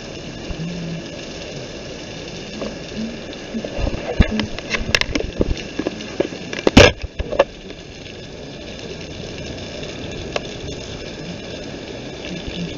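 Handling noise from a handheld camera brushed against a shirt: a steady hiss, then a run of knocks and rubbing clicks a few seconds in, the loudest about two-thirds of the way through.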